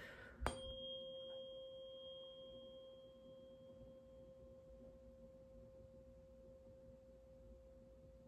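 Tuning fork struck once about half a second in, then ringing a single steady, faint tone that fades slowly, with a high overtone that dies away within the first couple of seconds.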